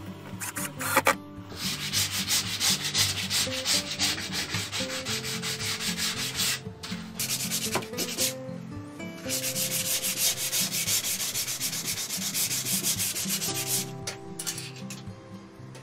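Hand sanding: a sanding block rubbed rapidly back and forth along a wooden strip, in three spells of a few seconds each with short breaks between. Soft background music plays underneath.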